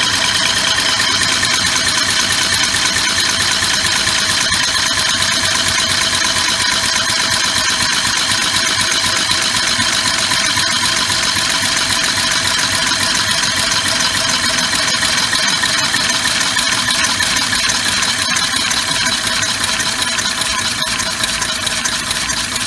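Homemade three-cylinder oval compressed-air engine running steadily at speed: a continuous loud hiss of exhausting air with fast, even pulsing. It is running pretty good with its cam timing corrected.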